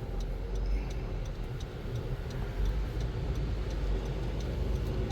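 Car indicator relay ticking steadily in the cabin, about two to three ticks a second, over a low steady rumble.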